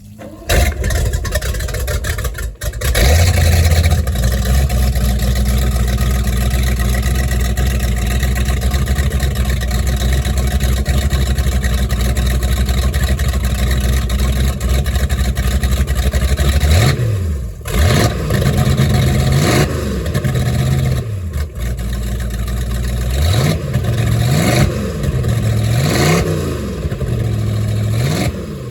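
1988 Baja 240 Sport boat's big-block engine cranking and catching about three seconds in, then idling steadily. From a little past halfway the throttle is blipped several times, the engine note rising and falling with each rev.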